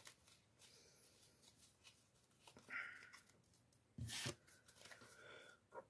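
Faint handling of trading cards and pack wrappers: quiet rustles, with one louder, brief rustle about four seconds in.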